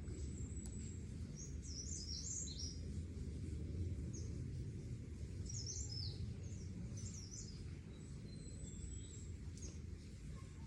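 Small birds chirping in two short bursts of quick high notes, over a steady low rumble.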